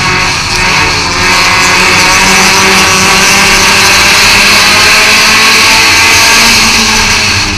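Thunder-class stock car's engine running hard under racing load, heard from onboard the car, with a brief dip about a second in.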